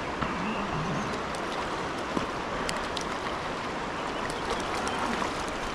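Steady rushing of river water, with a few faint small clicks scattered through it.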